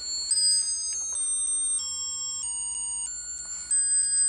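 A children's electronic toy playing a simple tune of high, pure electronic notes, each held about half a second before stepping to the next pitch.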